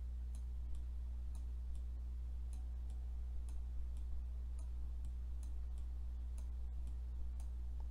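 Steady low electrical hum with faint, thin clicks ticking about twice a second.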